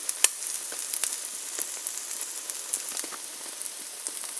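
Butter sizzling in a frying pan under bread slices with eggs cooking in their middles: a steady hiss with scattered sharp pops and crackles.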